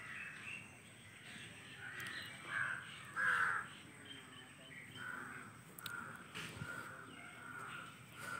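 Birds calling: a series of short, harsh calls, the loudest about three seconds in, with fainter calls through the rest.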